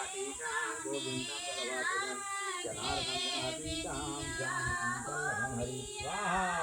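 Voices singing a devotional chant, a melody that rises and falls.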